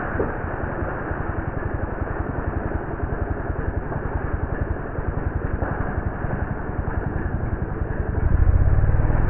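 Two-stroke chainsaw idling with a rapid, even pulse, swelling louder and lower about eight seconds in.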